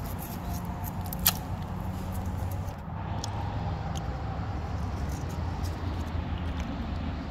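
Steady low rumble of road traffic on the bridge overhead, with one sharp click about a second in.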